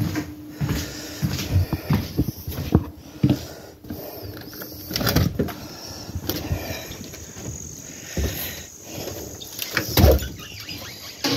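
Irregular knocks and rustling: footsteps and handling noise from a handheld phone as someone walks through a house and pushes a window curtain aside, with a louder thump about ten seconds in.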